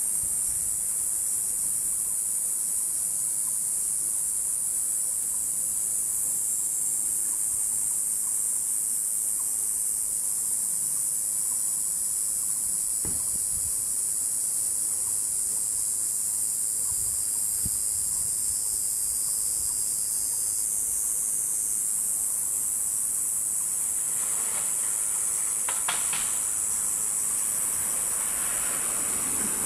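Steady high-pitched drone of an insect chorus, with a few faint soft knocks and a brief rustle near the end.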